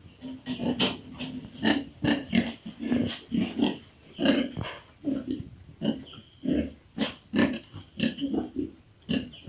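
Pigs grunting, a steady run of short low grunts about two a second.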